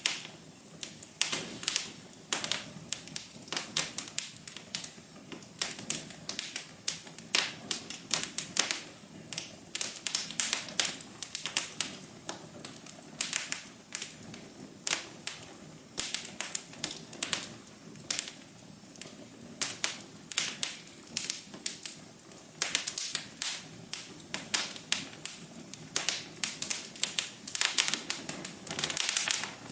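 Wood fire crackling in a fireplace: irregular sharp pops and snaps, often in quick clusters, over a soft steady hum.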